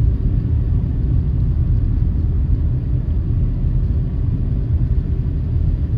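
Steady low rumble of a car on the move, heard from inside the cabin: engine and tyre noise with a faint constant hum.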